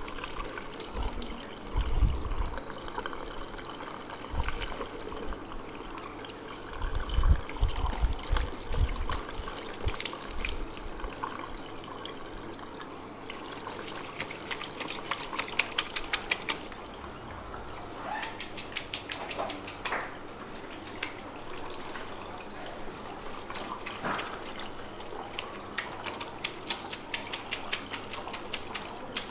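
Handheld shower sprayer running water onto hair and splashing into a plastic shampoo basin, as fingers work through the wet hair. A few low thumps come in the first third, and stretches of fine crackling in the second half.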